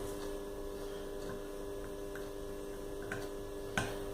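Faint small clicks and taps of the blower-wheel coupling being tightened on a balancing jig, with one sharper click near the end, over a steady electrical hum.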